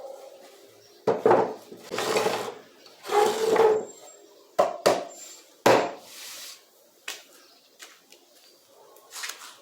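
Sharp knocks and scraping of wood being handled: four hard knocks between scraping noises that each last about half a second.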